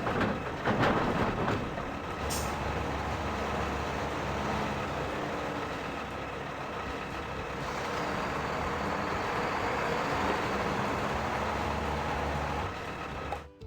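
A large vehicle engine running steadily with a low drone, with a brief hiss about a second in. It cuts off just before the end.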